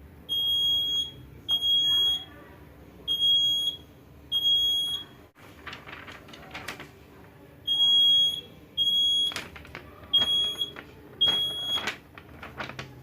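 Buzzer of a homemade laser security alarm beeping as the alarm is tripped: eight short, high-pitched beeps, each under a second, in two groups of four. Between the groups there is a pause of a couple of seconds filled with clicks and rustling.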